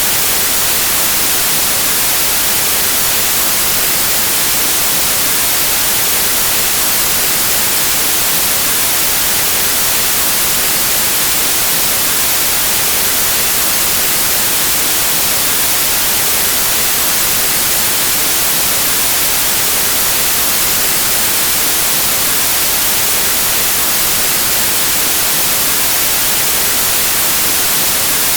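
Steady, unchanging white noise: an even hiss of static, brightest in the highs.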